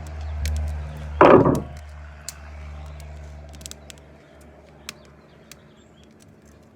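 A low droning hum, like a motor running, dies away over the first four seconds. A loud clunk comes a little over a second in, followed by scattered light clicks.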